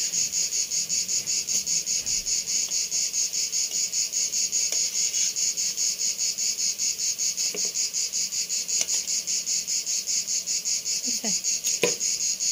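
An insect chirping in a fast, even pulse, several pulses a second, high-pitched and steady throughout. A short knock near the end, as the metal skimmer is set down.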